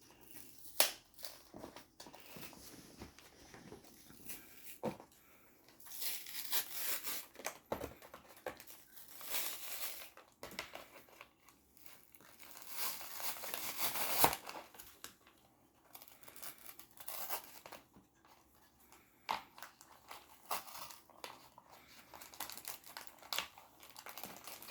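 Foil booster-pack wrapper of Pokémon cards crinkling and being torn open, in irregular bursts of rustling with a few sharp snaps.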